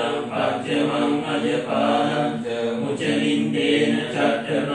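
Buddhist monks chanting Pali verses of Bodhi worship in a steady, rhythmic recitation, holding and changing pitch from syllable to syllable.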